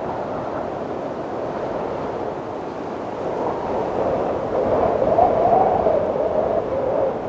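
Wind blowing in a steady rush, with a wavering howl that swells into a louder gust about two-thirds of the way through, then eases.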